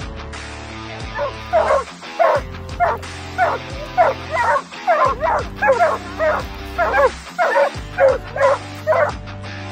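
Hunting hound barking repeatedly at the foot of a tree, roughly two barks a second, over background music. This is a treeing bark, the dog's signal that it has game up the tree.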